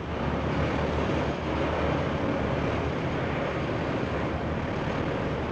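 Steady, really noisy drone of a car ferry's engines heard from the deck right above the engine room, mixed with the rush of the churning wake.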